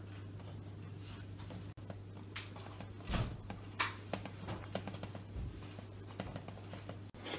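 A few light knocks and taps from kitchen items being handled, the loudest about three seconds in, over a steady low hum.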